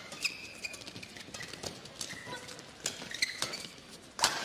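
A badminton rally: sharp racket hits on the shuttlecock at irregular intervals, the loudest near the end, with short high squeaks of players' shoes on the court floor in between.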